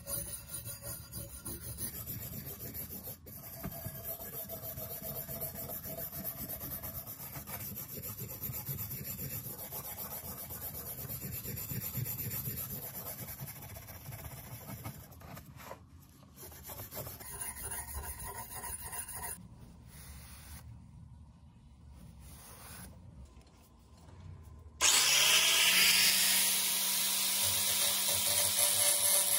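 Hand abrasive work on a heavily rusted steel cleaver: a continuous rough rubbing and scraping, broken by a few abrupt cuts. About 25 seconds in, a small electric power tool switches on, its pitch rising briefly and then holding a steady whine, much louder than the rubbing.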